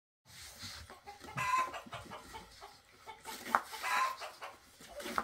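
Hens clucking in short calls, with a few light knocks mixed in.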